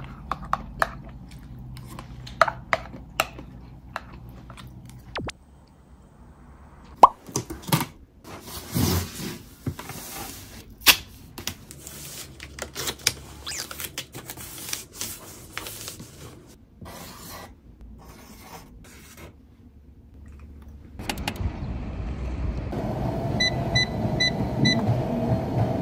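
Light clicks and knocks of chopsticks and a plastic container on tableware, then a cardboard box being handled and taped, a run of scrapes, rips and knocks. Near the end a gym treadmill's motor and belt run steadily, and its console beeps four times.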